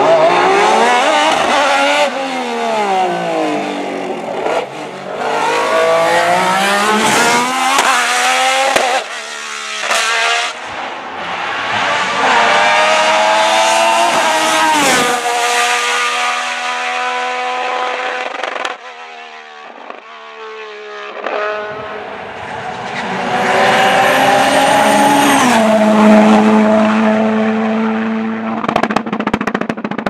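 Sports-prototype race car engine revving hard, its pitch rising through the gears with sharp drops at each shift and on braking, over and over. There is a quieter lull about two-thirds of the way through, then it rises loud again and settles into a steadier held note near the end.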